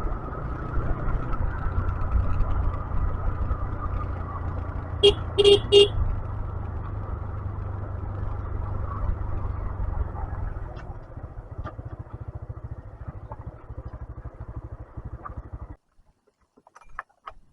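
A 125cc motorcycle engine running, with three short horn toots about five seconds in. The engine note dies down into spaced pulses in the second half, and the sound cuts off abruptly near the end.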